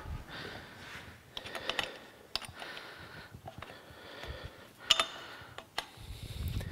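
Hand wrench clicking and scraping on the connecting-rod bolt as the new piston is fastened to the crank of a Porter-Cable single-stage air compressor: a few sharp metal clicks with soft scraping between them.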